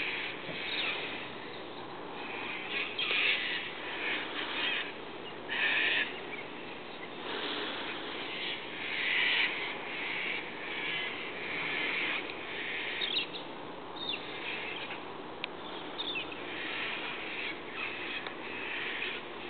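A flock of galahs calling while feeding on the ground: many short calls overlapping, with louder bursts every second or two.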